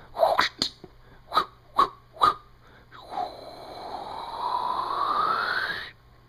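A person making mouth sound effects: five short clicks or pops, then a breathy, whistling sound that rises slowly in pitch for about three seconds and stops abruptly.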